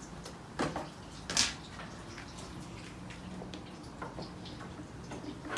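A few short household knocks and clicks over a quiet room background, with one sharper, louder click about one and a half seconds in.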